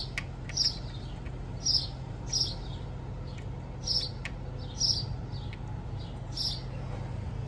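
A small bird chirping: short, high, falling chirps about once a second at uneven intervals, over a steady low hum, with a few faint clicks between them.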